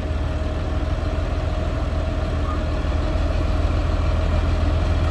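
Caterpillar D6R XL bulldozer's diesel engine running steadily, a deep continuous rumble that grows slightly louder.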